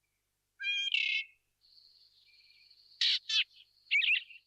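Birds calling: a short chirpy call about half a second in, two loud sharp calls close together about three seconds in, and a quick run of chirps near the end, with a faint thin high whistle held between them.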